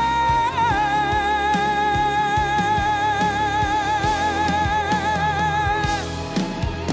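A singer holds one long note in full voice over rock band accompaniment with drums, dipping slightly in pitch about half a second in and then sustaining it with vibrato until it stops about six seconds in; the band plays on.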